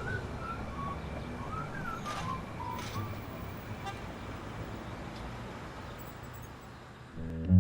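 Street ambience: a steady hum of traffic with a few faint chirps in the first seconds, slowly fading down. Near the end, a whistled tune with guitar comes in.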